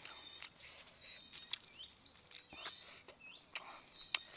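Small birds chirping outdoors: short rising chirps repeated several times, over a thin steady high tone, with a few sharp clicks scattered through.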